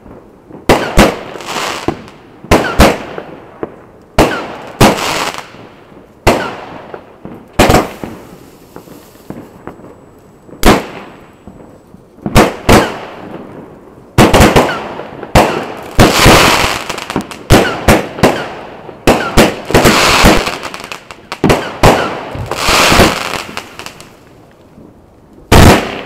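WECO 'Eruption' consumer firework battery firing its shots one after another: a sharp bang every second or two, each fading over about a second. The shots come thicker in the second half, and there is a very loud bang near the end.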